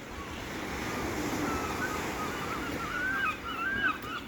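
Waves washing on the shore, with water birds breaking into a rapid run of short calls about halfway through.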